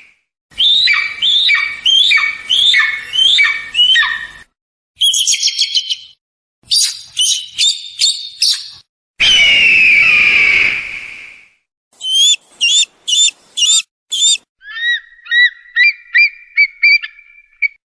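Eagle calls played as a string of separate clips with abrupt cuts and silent gaps. First comes a run of about seven piercing calls, each falling in pitch. Then there are short bursts of rapid high-pitched notes, a long harsh scream about nine seconds in, and a quick repeated trill near the end.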